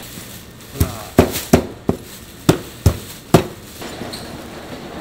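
A cleaver chopping braised pig's tails on a cutting board: about seven sharp knocks, roughly two or three a second. Near the end, a plastic bag rustles as the pieces are bagged.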